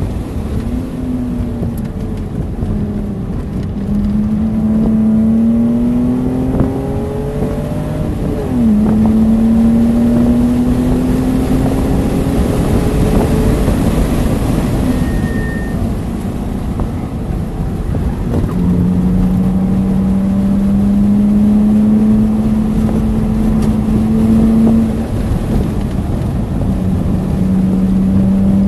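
BMW Z3's engine pulling hard at track speed, its note climbing in each gear and dropping back at shifts about 4 and 8 seconds in and again near the end, with a gap in the middle where it eases off. Wind and road noise run under it.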